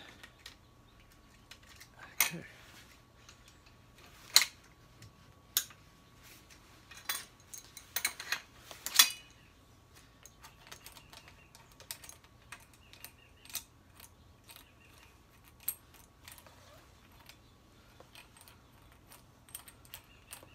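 Irregular metallic clinks and clicks of a wrench working the nut on a homemade headset press, a long threaded bolt with nuts and wide washers, drawing a headset bearing cup into a bicycle head tube. The loudest clinks cluster about eight to nine seconds in.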